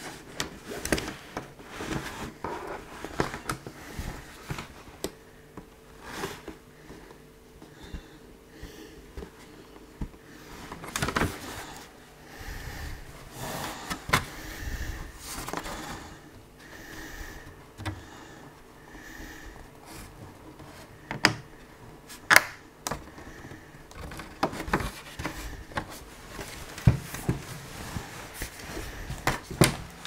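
A laptop being handled, turned over and opened on a table: irregular clicks, taps and knocks of its casing against the surface and hands, with soft rubbing between them and a few sharper knocks past the middle.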